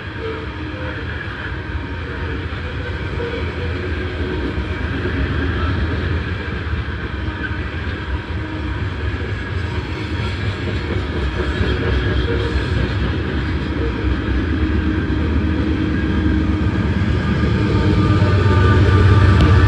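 Norfolk Southern freight train's coal hopper cars rolling past, a steady rumble of steel wheels on rail. Near the end the low drone of diesel locomotives builds and grows louder as the units come alongside.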